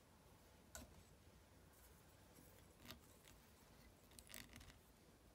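Near silence with a few faint clicks and scrapes: hands and a small metal tool handling a fly in a fly-tying vise, at the deer-hair wing. One click comes about a second in, another near three seconds, and a short cluster near the end.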